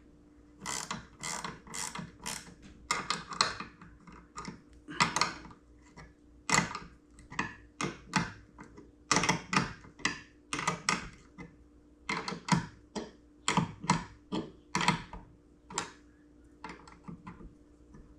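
Straightening jig being tightened by hand in short strokes, a run of irregular mechanical clicks about one or two a second, as it presses on the bent scope tube to bend it back. A faint steady hum lies underneath.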